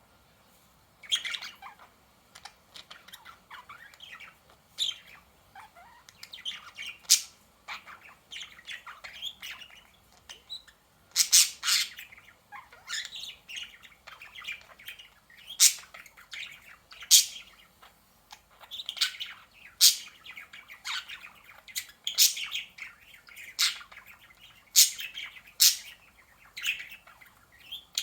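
Pet budgies (budgerigars) chirping and chattering: a busy stream of short, high calls with some louder, sharp squawks mixed in. The calling starts about a second in.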